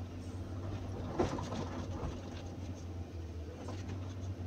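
Hydraulic excavator's diesel engine running steadily, heard from inside the cab, with a sharp knock about a second in and some clatter of limestone rubble as the bucket works.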